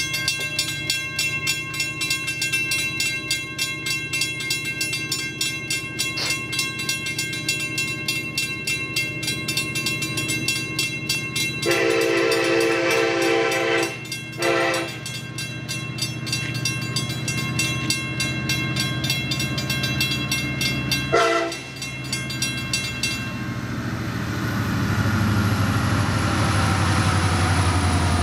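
Level crossing bell ringing rapidly as a long iron-ore freight train approaches. The lead diesel locomotive sounds its horn in two blasts close together about twelve seconds in, then a short toot about twenty-one seconds in. From about twenty-four seconds the rumble of the locomotives and wheels grows louder as the train reaches the crossing.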